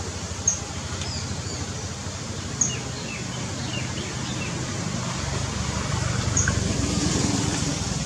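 Small blue kingfisher (common kingfisher) giving its high, thin piping call: three short, sharp notes a couple of seconds or more apart, with fainter chirps between them. A steady low rumble runs underneath.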